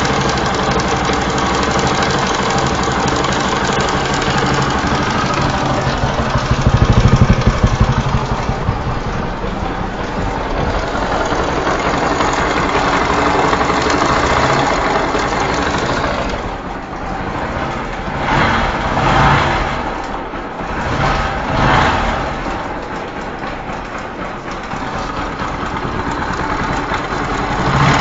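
Bajaj Pulsar 135 LS single-cylinder engine running, with the rattling, clicking noise of a severely loose timing chain hitting the upper camshaft sprocket. It gets louder for a couple of seconds about a quarter of the way in, and rises in level in several short bursts past the middle.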